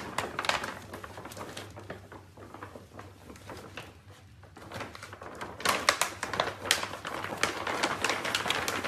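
Plastic dog-food bag crinkling and crackling as puppies push and root into it, in dense irregular crackles that grow busier and louder about halfway through.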